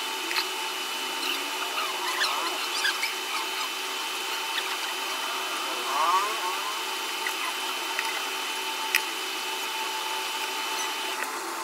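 Light clicks, knocks and scrapes from a laptop display panel and its metal hinges being handled and turned on a workbench, loudest about six seconds in. Underneath runs a steady machine hum with a thin high whine that stops near the end.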